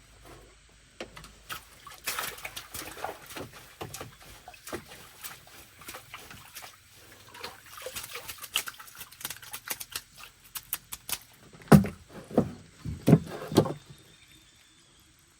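Water splashing and sloshing, with a run of irregular clicks and knocks. Near the end come four loud, low thumps close together.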